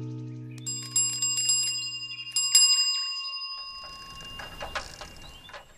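A small metal bell struck in two quick runs of rings, the second run about a second and a half after the first, over the tail of a piano chord that stops about two and a half seconds in.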